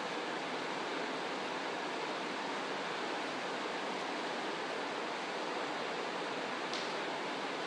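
Steady, even hiss at a constant level, with a faint short tick near the end.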